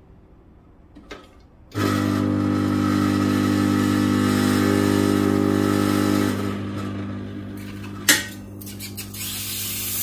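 Milesto Elaine M3 dual-boiler espresso machine with its steam turned on: its pump starts with a sudden loud, steady hum a little under two seconds in and eases off after about six seconds. A sharp click follows about eight seconds in, then the steam wand begins to hiss, growing louder near the end.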